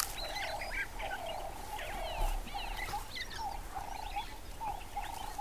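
Wild savanna ambience: many birds chirping and calling with short rising and falling notes, over a lower pulsing animal call repeated about twice a second.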